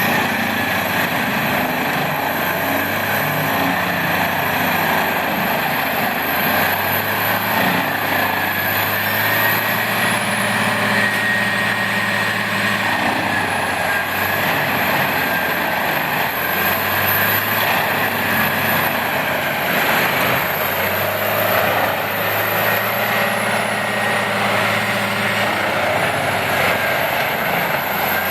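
Wood chipper running steadily under power, engine and cutting rotor together, with a thin high whine that slowly dips and recovers a few times.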